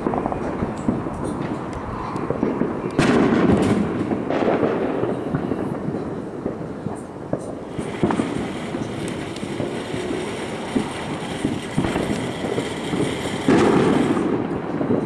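Fireworks going off: repeated bangs and crackling, loudest about three seconds in and again near the end.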